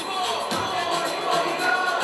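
Bollywood dance music with a beat, played over stage loudspeakers in a hall.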